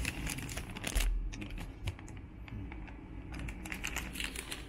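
Keys on a Dell G7 15 laptop's backlit keyboard being pressed, irregular clicks in two short bunches, with a low bump about a second in.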